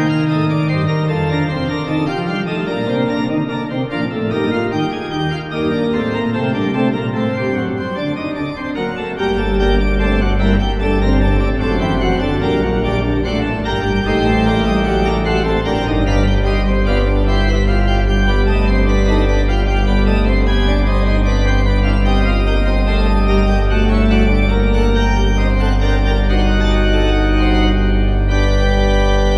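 Organ music with slow, sustained chords. A deep bass note comes in about nine seconds in and is held steadily from about sixteen seconds on.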